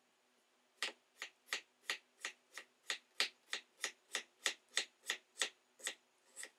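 Single-bevel damascus chef's knife slicing a tomato on a wooden cutting board: about seventeen quick, even strokes, roughly three a second. Each stroke is a short cut through the fruit onto the board.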